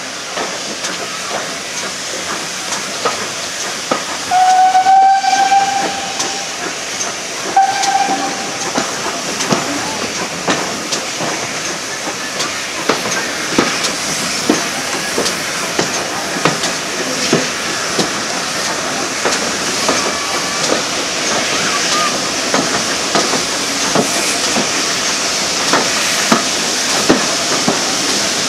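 Steam locomotive whistle: a long blast about four seconds in and a short one a couple of seconds later. Under it runs a steady hiss of train noise with many scattered clicks.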